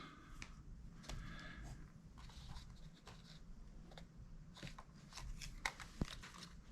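Faint, scattered clicks and scratches of fingers working a ribbon-cable connector and its plastic locking bar inside an HP Pavilion laptop, with a couple of sharper ticks near the end.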